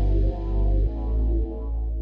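Background music: a deep bass line changing notes about every half second under fainter melodic lines.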